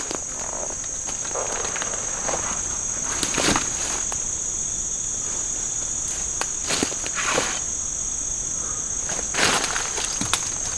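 Footsteps on the tropical forest floor: a few separate, irregular steps, the loudest about a third of the way in, around two-thirds in and near the end. Behind them runs a steady, high-pitched drone of forest insects.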